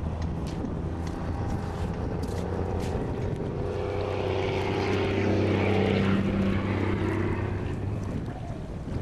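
An engine passing by, growing to its loudest about five to six seconds in and then fading, over a steady low hum.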